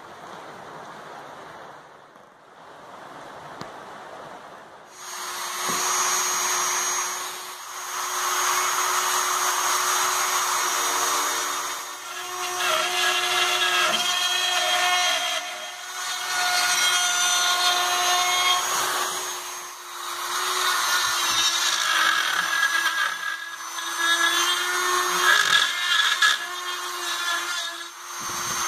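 A Dremel rotary tool runs at high speed, cutting plywood kit parts free of their sheet. It starts after a few seconds of low hiss and keeps going with a steady whine that dips briefly several times.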